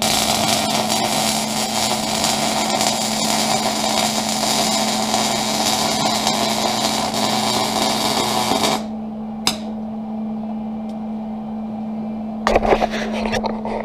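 MIG (wire-feed) welding arc on steel, a steady crackling sizzle for about nine seconds that stops abruptly, laying a single holding bead on a reinforcing piece in a tractor bucket. A steady hum runs underneath, and a few knocks come near the end.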